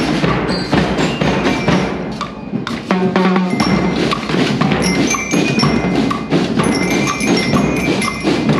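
Marching band playing: drums beating steadily with bright glockenspiel-like bell notes ringing over them.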